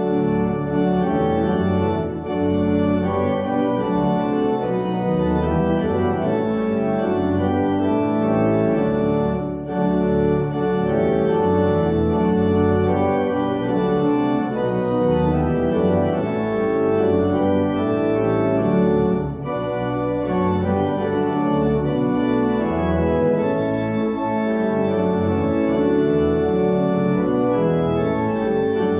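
Organ playing held chords that change in steps, phrase by phrase, with short breaks between the phrases.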